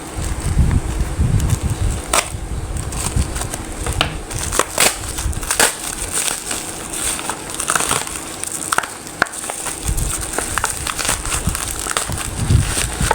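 Product packaging being opened and handled by hand, with irregular crinkling and crackling throughout.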